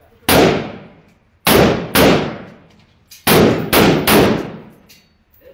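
Rifle fired in single shots at an indoor range, about six shots in uneven groups roughly half a second apart, each followed by a long echo off the range walls.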